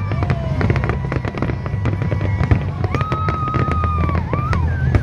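Fireworks display: many rapid bangs and crackles, with music playing underneath.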